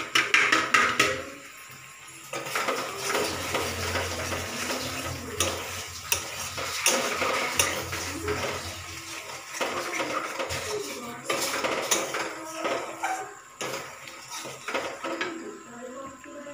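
A metal spatula clanking and scraping against an iron kadai as masala paste is stirred and fried, with repeated clinks of metal utensils. The clatter is loudest in the first second.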